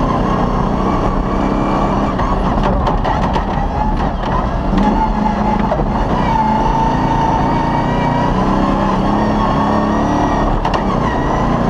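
Off-road rally car's engine heard from inside the cabin, running hard at speed, its pitch rising and falling with acceleration and gear changes. Sharp knocks and clatters from the rough track cut in a few seconds in and again near the end.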